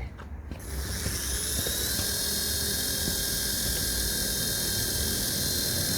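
Small electric motor of a toy soccer-ball helicopter running with a steady high-pitched whine, over a low hum, starting about half a second in. It is running while the toy's circuit is exposed to microwaves and thought to be shorting out.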